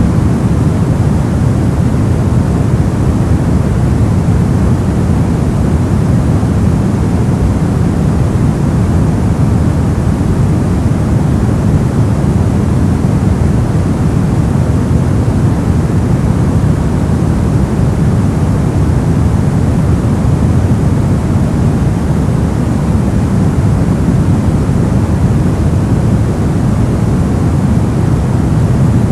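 Brown noise: a steady, even rushing hiss weighted toward the low end, unchanging throughout.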